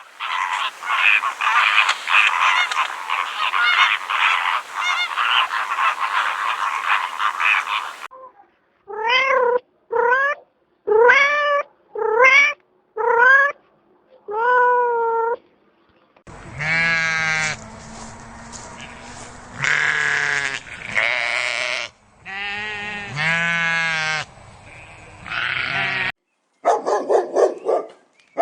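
A run of separate animal calls. First comes about eight seconds of dense, noisy chatter. Then six short cat meows rise and fall in pitch, followed by several longer calls with wavering pitch, and dog barks start right at the end.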